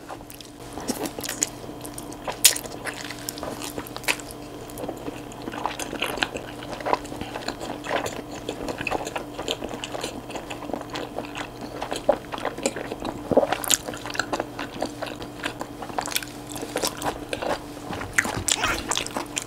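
Close-miked chewing of chewy wide Chinese glass noodles in spicy sauce, with many short, sharp wet mouth clicks and smacks. A steady faint hum runs underneath.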